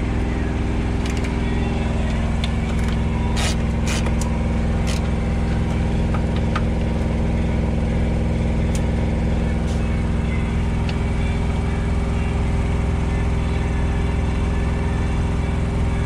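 Engine idling steadily with a low, even hum. A few sharp metal clicks from a wrench on the air-filter canister's clamp bolts come mostly in the first five seconds.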